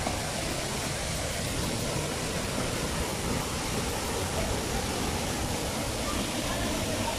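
Steady rush of water from a waterfall and the stream running over the rocks, its flow strong.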